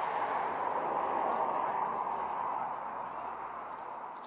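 Twin-engine jet airliner on final approach, its engines' steady rushing noise swelling to a peak about a second and a half in and then slowly fading. Small birds chirp briefly several times over it.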